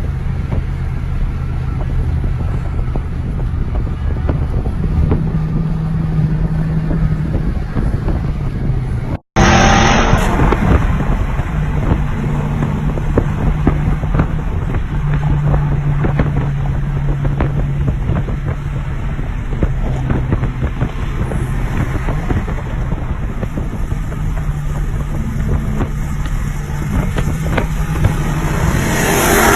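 Car engine running at a steady pace, its pitch stepping up and down now and then. The sound drops out briefly about nine seconds in, and a louder rising sweep comes at the very end.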